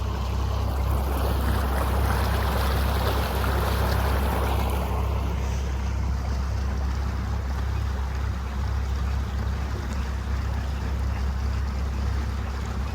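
Small boat under way on the river: a steady low rumble with a rushing noise that swells over the first few seconds and then eases.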